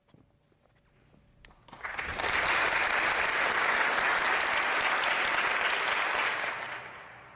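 Audience applauding, starting suddenly about two seconds in, holding steady, then fading away near the end.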